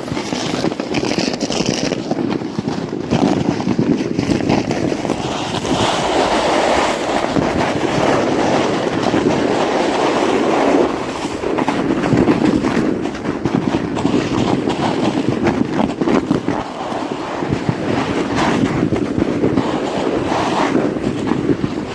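A sled loaded with hay dragged over snow, making a steady scraping rush.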